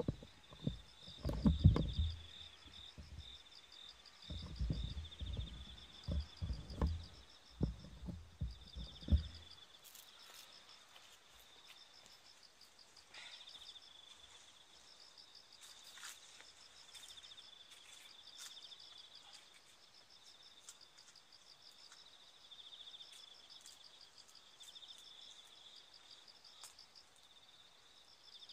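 Insects chirping steadily in high-pitched, pulsing trains. For the first nine seconds, louder irregular low thumps and rumbles of wind or handling on the microphone cover them. A few faint clicks and rustles come after that.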